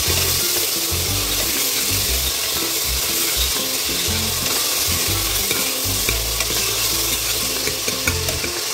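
Chopped tomatoes and onions sizzling in hot oil in a pressure cooker as a spoon stirs them, with a few light clicks of the spoon near the end.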